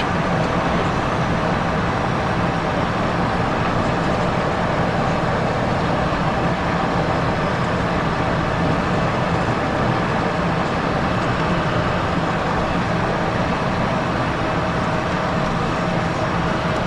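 Steady cabin noise of a Cessna Citation XLS business jet on final approach: the even rush of airflow over the airframe, with gear and flaps down, mixed with the constant hum of its twin turbofan engines. It is heard from inside the cockpit.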